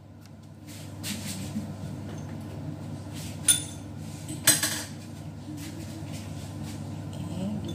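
Two sharp, ringing clinks of kitchenware knocking together, about a second apart, over a steady low hum.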